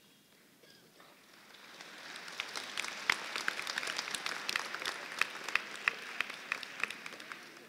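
Audience applauding: the clapping swells over the first couple of seconds, holds with single sharp claps standing out, and dies away near the end.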